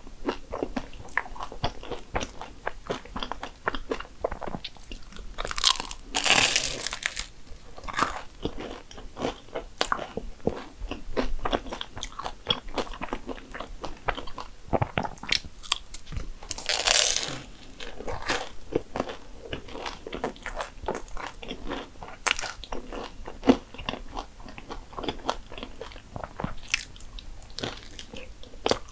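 Close-miked eating of a flaky, cream-topped Danish pastry: crunchy bites into the layered crust and chewing with many small mouth clicks. Two longer crunches stand out, about six seconds in and a little past halfway.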